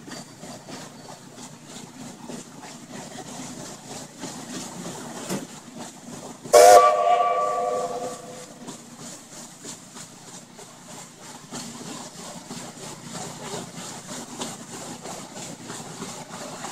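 A paddle steamer's steam whistle gives one sudden blast about a third of the way in, several notes sounding together as a chord. It lasts about a second and a half and then fades. Underneath runs a steady background noise with a regular beat.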